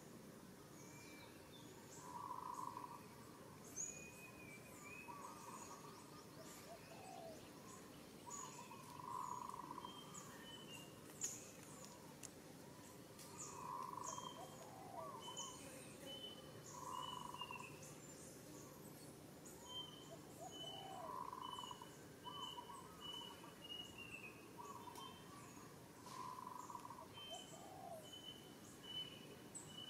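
Faint birdsong: a low hooting note repeated every three to four seconds, a run of quick, evenly spaced high notes in the second half, and scattered high chirps.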